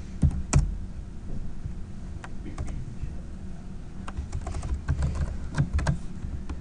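Typing on a computer keyboard: irregular keystrokes, with a couple of louder ones just after the start and a quicker run of keys about four to six seconds in.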